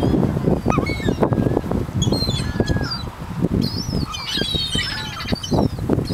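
Gulls flapping their wings close by in a flurry of quick, soft beats as they hover around, mixed with high, bending gull calls that come thickest about four to five seconds in.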